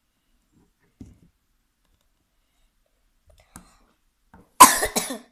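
Handling noise from plastic toy dolls being moved close to the phone: a couple of faint clicks, then a loud, brief rustling clatter about four and a half seconds in.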